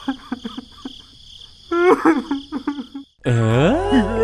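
Squeaky cartoon-character vocal babble: short pitched chirping syllables over a steady high insect-like whine. About three seconds in, a swooping sound effect that slides down and up in pitch begins over a low hum.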